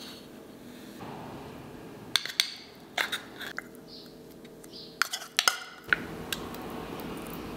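A metal fork or spoon clinking and scraping against a ceramic bowl as canned tuna is worked into it. There are a few sharp clinks two to three seconds in, then a quick cluster of them around five seconds in.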